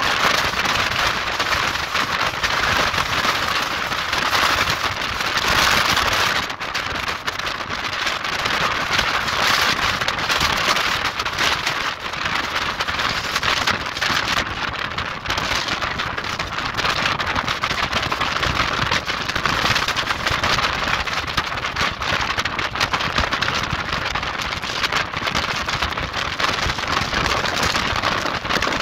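Gale-force storm wind buffeting the microphone: a loud, steady rushing noise that crackles with each gust.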